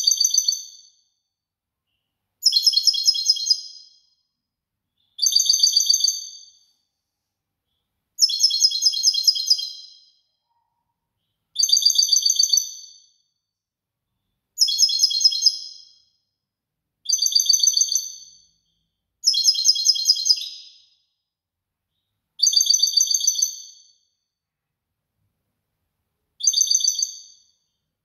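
European goldfinch, a tutored cage bird, singing the same short learned phrase over and over: about ten high, rapid trilled phrases, each about a second and a half long, with pauses of a second or two between them.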